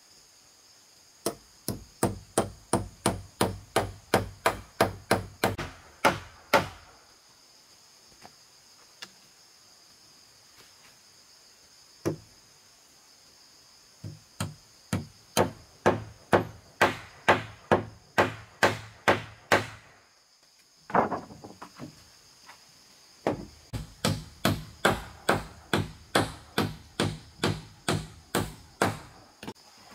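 Quick runs of hand-tool blows, about three a second, in three bursts with a single blow between them. A steady high insect buzz runs behind.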